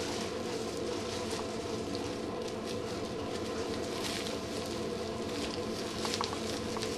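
A steady mechanical hum holding several even tones, with faint, scattered rustles and patter of puppies shifting on soft blankets.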